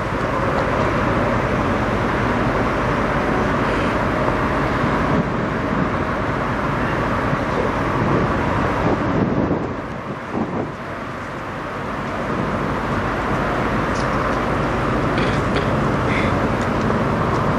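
Diesel engine of a parked Freightliner conventional semi truck idling, a steady low running sound with a brief dip about ten seconds in.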